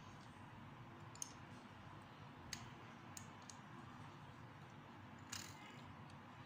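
Faint sharp clicks of Lego bricks being pressed together and set down on a hard surface, about five of them, the loudest about five seconds in, over a low steady background hum.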